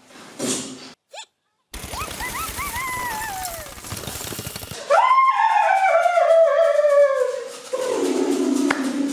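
Cartoon soundtrack: a rumbling crash with short squeaky chirps over it, then a long, loud wail that slowly falls in pitch and ends on a lower held note.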